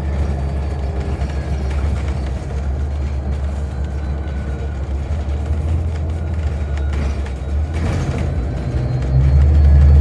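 Transit bus heard from inside the passenger cabin while driving: a steady low engine and road rumble, growing louder about nine seconds in.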